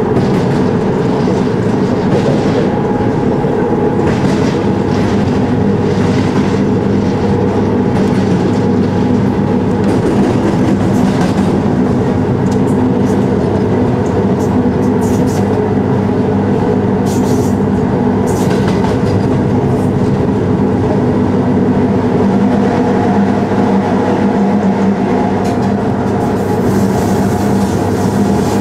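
EA-class electric locomotive running at speed, heard from the cab: a steady hum from the traction equipment over the rolling noise of wheels on rail, with some light clicks. Near the end the sound turns a little brighter as the train enters a tunnel.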